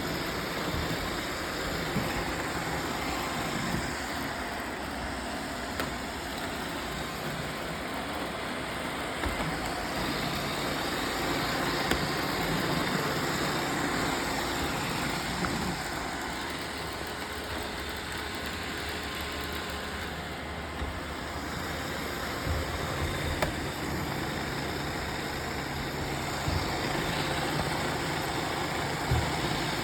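Roomba robot vacuums running together with a steady motor and brush whirr, with an occasional short knock.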